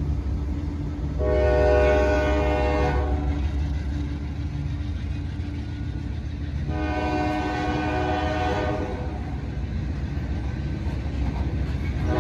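Freight train horn sounding two long blasts a few seconds apart, with a third starting at the very end, over the steady low rumble of the train rolling past.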